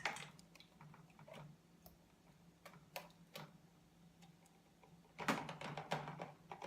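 Scattered light clicks and clinks of a utensil against glass jars and a plastic funnel as tomato relish is put into the jars, with a quicker run of clinks near the end.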